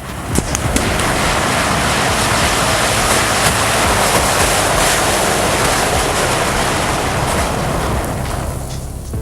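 Large mass of burning matches and sparklers flaring up in a loud, steady rushing roar, with sharp crackles scattered through it. It starts suddenly and eases a little near the end.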